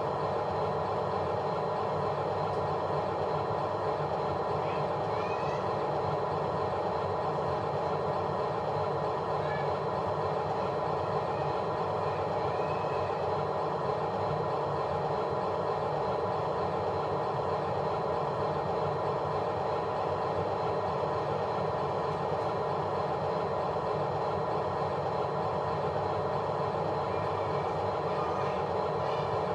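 A machine running steadily, its sound unchanging throughout.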